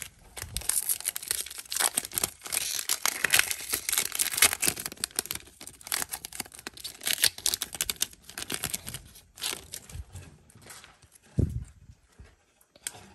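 Wrapper of a 2021 Donruss baseball card pack crinkling and tearing open, a dense crackle for most of the first nine seconds. Then the cards are handled, with scattered light clicks and a soft thump near the end.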